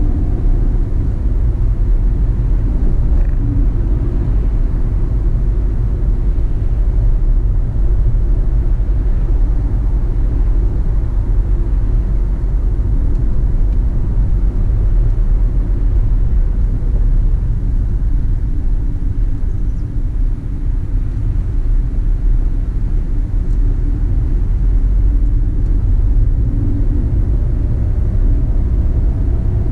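Car driving: a steady low rumble of engine and road noise, with the engine's pitch rising near the end.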